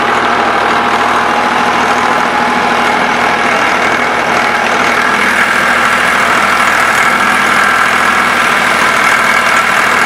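Ford 4560 tractor's diesel engine running steadily while the tractor drives through the field pulling an implement, heard from close beside the engine.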